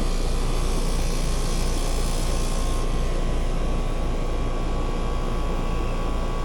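Outdoor heat pump unit running in heat mode: condenser fan and compressor making a steady hum with a slow pulsing beat and a broad whoosh of air; the high hiss eases slightly about three seconds in.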